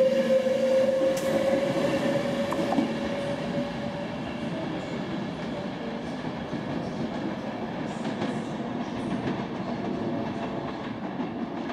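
Virgin Pendolino electric train moving away along the platform. A steady whine rises slowly in pitch and fades over the first few seconds, with train rumble continuing throughout.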